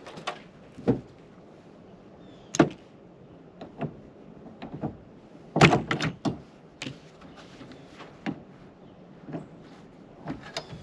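Irregular knocks and clunks from a truck door and cab being handled. The loudest is a quick cluster of them a little past halfway through.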